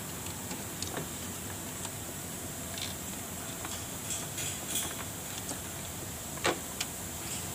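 A few light clicks and knocks of a plastic upper radiator cover being handled and fitted into place over the radiator, over a steady hiss; the loudest knock comes about six and a half seconds in.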